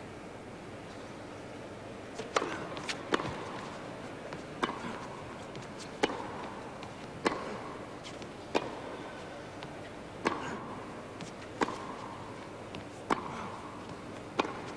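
Tennis serve and rally: sharp pocks of racket strings hitting the ball, starting about two seconds in and repeating roughly every second and a half, over a low steady arena hush.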